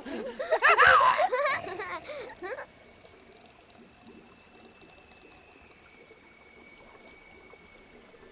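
Giggling laughter for about two and a half seconds. Then a hush with a faint trickle of rainwater and a thin high held tone that sinks slightly in pitch.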